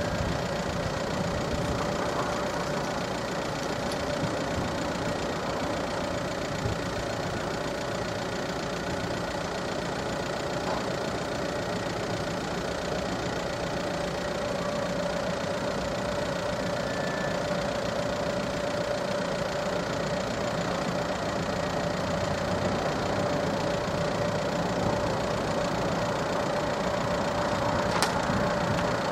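A steady mechanical hum, like an idling engine, with one constant mid-pitched tone running through it and a single click near the end.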